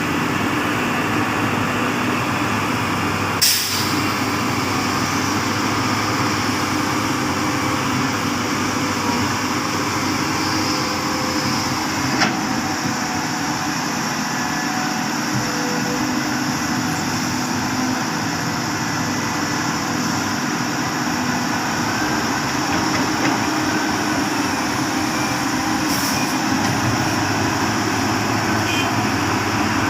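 Heavy diesel earthmoving machinery running steadily, with a sharp knock about three and a half seconds in and another about twelve seconds in.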